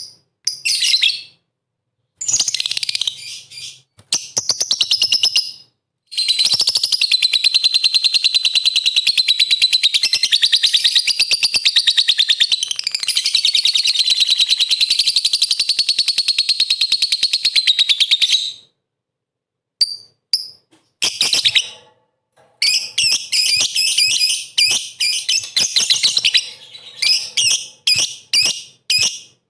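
Lovebird singing in shrill chattering bursts, with one long unbroken rapid trill of about twelve seconds in the middle, the prized 'ngekek'. It is a hard-singing lovebird lure recording, meant to provoke other lovebirds into answering.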